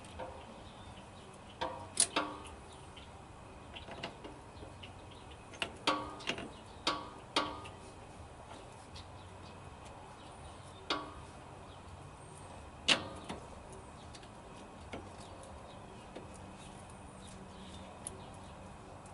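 Metal shims and washers clinking against the aluminum spring shackles and the leaf-spring pin as they are fitted by hand to take up side play: scattered sharp metallic clinks, some ringing briefly, with a cluster about six to seven seconds in and the loudest about two and thirteen seconds in.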